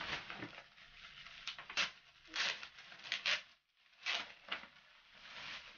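Clear plastic clothing packaging and a paper shopping bag rustling and crinkling in short, irregular bursts as a shirt is pulled out and unwrapped by hand.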